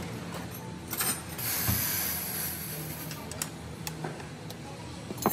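Small clicks and light rattles of hands unclipping and handling the fuel injector connectors on a Toyota Corolla engine, with a hiss lasting about a second and a half near the middle.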